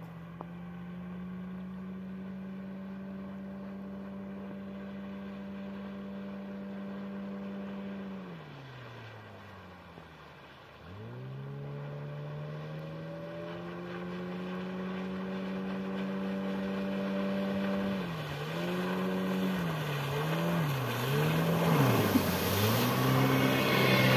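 Two-stroke outboard motor on an inflatable boat running at a steady speed, then throttled right down about eight seconds in and opened back up. A few seconds before the end it is eased off and opened three times in quick succession, then runs faster and louder with a rushing noise building.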